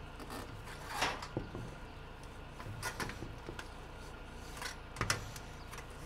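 Hand seamer bending the edge of a sheet-metal roofing panel on a plywood bench to form a cross-seam hem: a few short scrapes and creaks of the metal being folded, the loudest about a second in, with others near three and five seconds.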